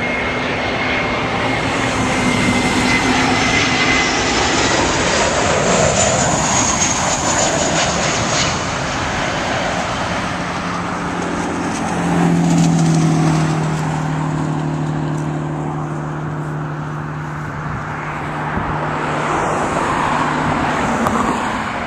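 Jet engines of a Southwest Boeing 737 landing: a loud rushing roar with a high whine that falls in pitch as it passes low overhead, then a swell about twelve seconds in and a steady low hum as it rolls along the runway.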